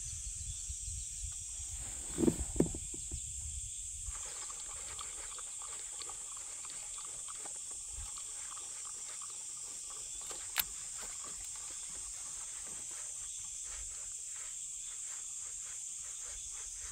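A steady high-pitched drone of insects over a low rumble. Two brief louder sounds come about two seconds in, and a single sharp click a little past halfway.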